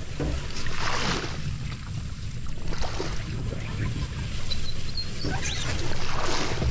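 Plastic boat hull being hauled through dense marsh grass and water hyacinth, swishing and scraping through the plants in surges every two to three seconds, with wind rumbling on the microphone.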